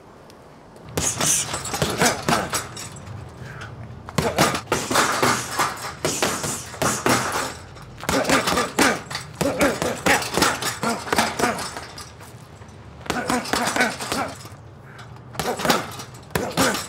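Flurries of punches landing on a heavy punchbag, several hits a second in bursts of about three seconds with short pauses between.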